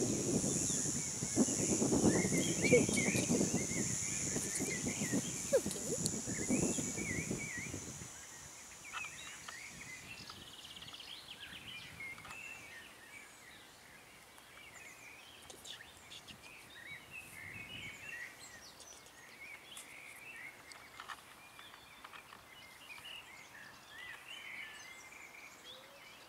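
Small birds chirping and calling on and off in woodland. A louder low rustling noise stops about eight seconds in, and a steady high hiss stops about ten seconds in.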